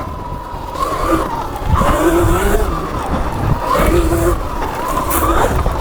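Sur Ron electric dirt bike's motor whining as it is ridden on a trail, the whine rising and falling in pitch several times with the throttle, over a steady low rumble.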